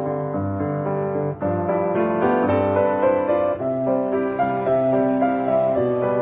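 Background instrumental music played on piano or keyboard, a steady flow of notes.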